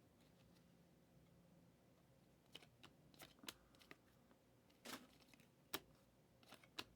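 Faint handling of Prizm football cards: a stack flipped through by hand, giving a string of short soft snaps and slides from about two and a half seconds in, the clearest about five and six seconds in.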